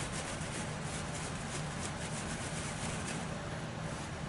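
Faint soft rubbing as a makeup brush is wiped clean on a cloth, over a steady low background noise.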